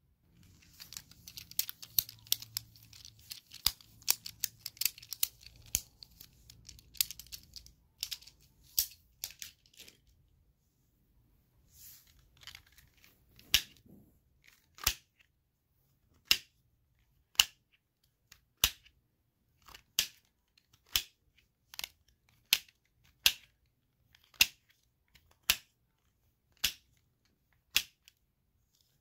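Fidget toys, pop-its and a fidget cube, handled for ASMR. First comes a dense run of crackling clicks and rustling for about ten seconds, then single sharp pops or clicks roughly once a second.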